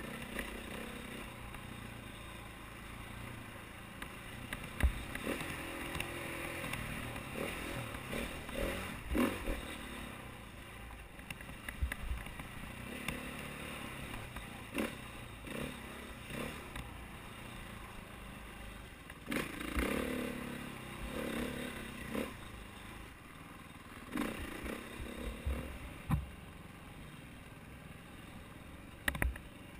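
KTM 450 XC-W dirt bike's single-cylinder four-stroke engine running on rough singletrack, its sound rising and falling with the throttle. Frequent short clatters and knocks from the bumps shake the camera.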